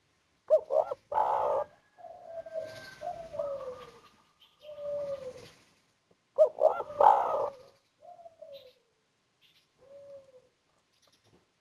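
Spotted dove (tekukur) cooing: two song phrases about six seconds apart, each opening with a few quick, loud notes and followed by a string of lower coos that slide slightly down in pitch.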